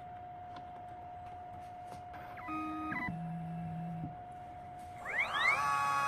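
2M2 Tank 2 Pro CNC key cutting machine moving into position for the second side: its motors whine at steady pitches that step down a little past two seconds in, then the cutter spindle spins up with a rising whine about five seconds in and settles at a steady pitch.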